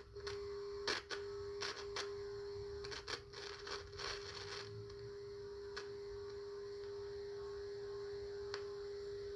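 Steady test tone of about 400 Hz from the Pioneer SX-1250's AM tuner, which is receiving a modulated test signal during alignment. A run of crackles and clicks comes through in the first few seconds while the trimmer capacitor is turned, with a couple of lone clicks later.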